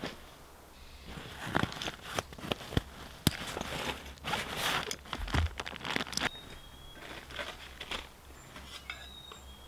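A nylon backpack being opened and unpacked: fabric rustling and a run of sharp clicks from its plastic buckles and cord locks, busiest between about one and six seconds in.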